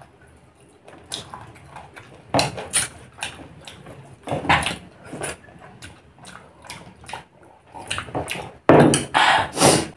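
Close-miked eating sounds from people eating chicken and rice by hand: chewing, lip smacks and wet slurps in irregular bursts, loudest in a cluster near the end.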